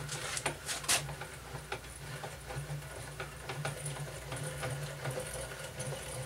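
Hand-cranked handwheel and leadscrew of a drill press X-Y cross-slide table being turned to move the table. A few sharp clicks come in the first second, then light ticks over a faint on-and-off low mechanical hum as the crank turns.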